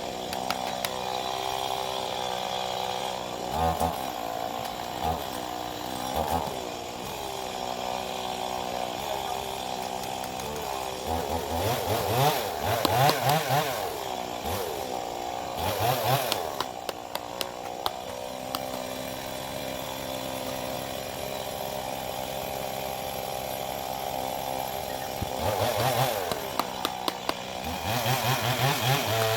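Two-stroke chainsaw running at a steady speed, revved up in several rising-and-falling bursts around the middle and again near the end.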